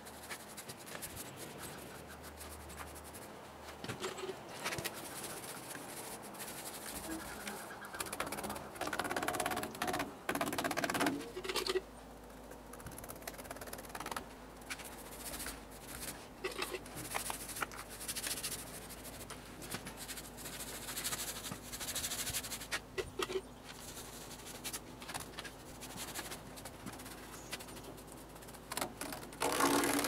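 Paintbrush stroking black paint onto a metal attachment plate: an irregular scratchy swishing that comes and goes with each stroke, with scattered small clicks and knocks.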